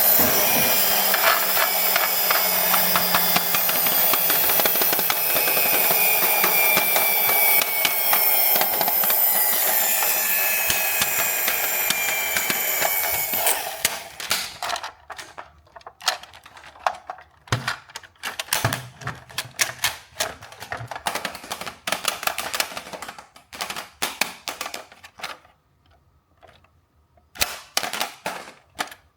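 Toy RC vehicle and its plastic packaging being handled: for about the first half a loud, steady whirring and crackling with a faint tone slowly falling in pitch, which stops abruptly. Scattered light plastic clicks and taps follow.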